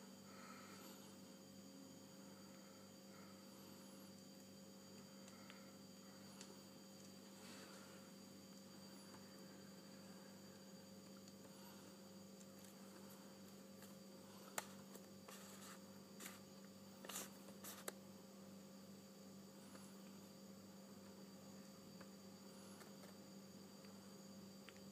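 Near silence: a steady faint electrical hum, with a few short faint clicks a little past halfway through.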